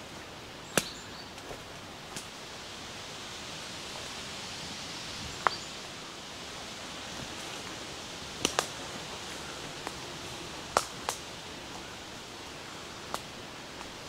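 Footsteps on a forest floor littered with dead wood: several sharp cracks of dry twigs and sticks snapping at irregular intervals. Under them runs a steady hiss of rustling forest ambience.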